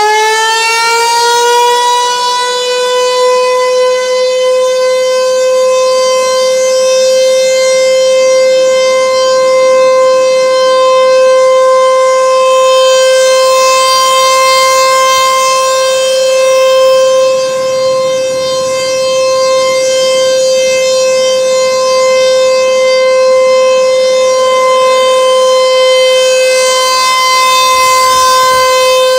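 ASC T-128 electromechanical outdoor warning siren sounding its test. It winds up to full pitch in the first second or two, then holds one steady high tone with slight swells in loudness.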